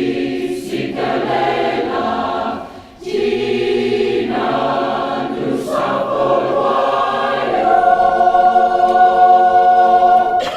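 Mixed community choir singing, with a short break about three seconds in, then ending the song on a long held chord that stops cleanly at the end.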